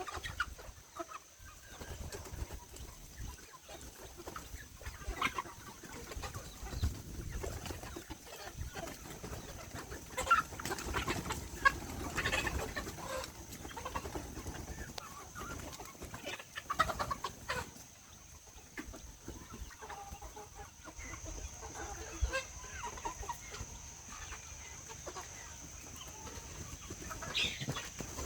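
Hens clucking and calling among a flock of village chickens, in scattered short calls.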